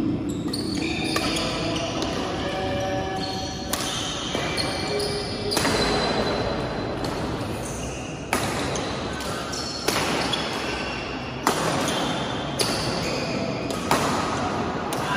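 Badminton doubles rally: sharp racket strikes on the shuttlecock every second or two, echoing in the hall, with short high squeaks of court shoes between them.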